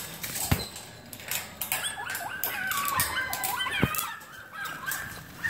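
A run of high, wavering animal calls through the middle, with a few sharp knocks from the phone being carried.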